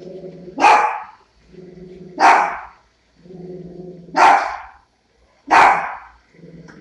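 Dachshund barking four times, about a second and a half apart, each bark short and loud, with a lower growl just before most of them.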